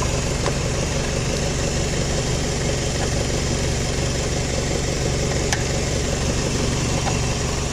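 Car engine idling steadily, heard with the hood open, with a few faint clicks from hands working at the battery hold-down.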